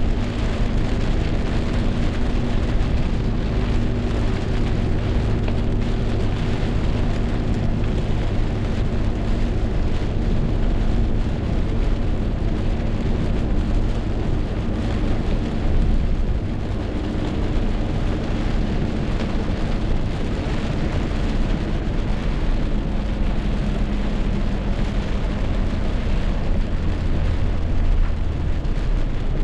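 Heavy rain pouring down steadily in a rainstorm, with a low steady hum underneath.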